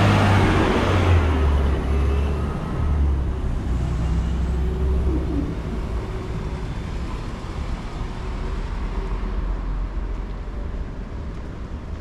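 Street traffic: a motor vehicle's engine rumbling close by at first, fading out after about five seconds and leaving a steadier, quieter traffic noise.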